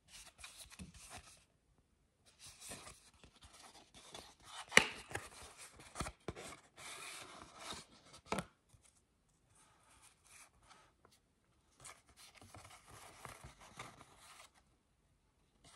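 Paper photo-card envelope being opened by hand and the thin cards slid out and leafed through: dry rustling and scraping of card and paper in short patches, with a sharp tap about five seconds in and another shortly after eight.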